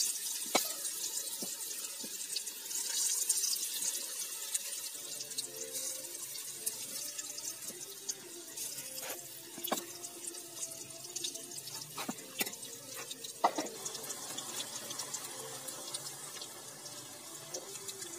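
Pakoras deep-frying in hot ghee in a karahi: a steady sizzle with scattered pops and crackles. The sizzle is louder in the first few seconds as fresh batter goes into the oil.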